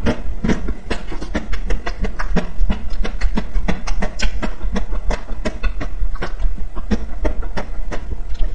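Close-miked eating of a coated ice cream bar: the hard outer shell cracking as it is bitten off and chewed, many sharp crunchy clicks a second over a steady low hum.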